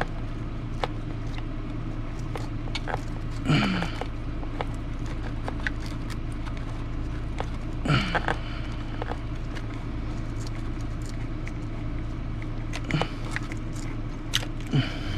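Small clicks and taps of hand tools against RC truck parts while a tight front bumper bracket is worked loose, with four short grunts of effort and a steady low hum underneath.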